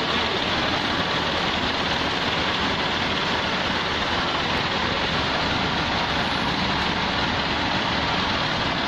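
Forklift engine running steadily while carrying drums, a constant even noise with no distinct knocks or changes.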